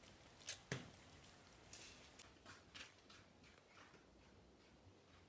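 Near silence, broken by a few faint, sharp clicks and taps in the first three seconds, the loudest under a second in.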